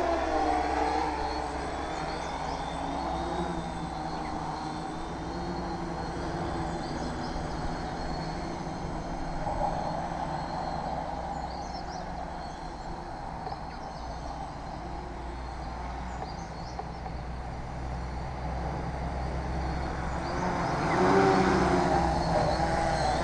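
Tarot FY680 hexacopter's electric motors and propellers buzzing in flight, the pitch drifting up and down as the throttle changes, growing louder near the end.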